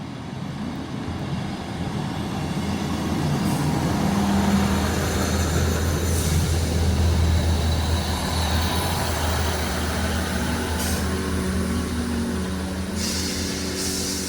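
Class 158 diesel multiple unit with its engines running, a low steady drone that builds over the first few seconds and then holds, its note wavering near the end.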